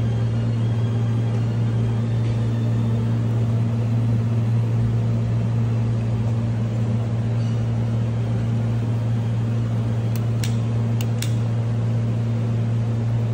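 Kitchen range hood fan running with a steady low hum and an even rush of air, with a few light clicks about ten seconds in.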